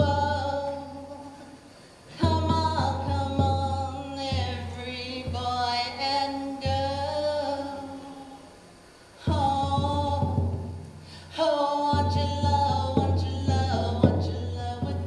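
Singing in long phrases over a steady low hum, with light percussive ticks. The singing dies away twice and starts again.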